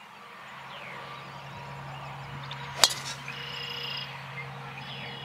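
A golf club striking a ball: one sharp crack about three seconds in, over a steady low hum and birds chirping.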